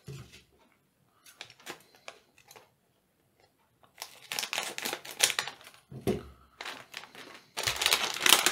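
Plastic foil LEGO Minifigures blind bag crinkling as it is handled and cut open with scissors. A few faint ticks at first, then steady crinkling from about halfway through, loudest near the end.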